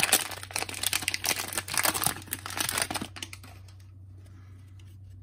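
Plastic cello wrapper of a Donruss soccer trading-card value pack crinkling and tearing as it is peeled open by hand. The crinkling stops about three seconds in.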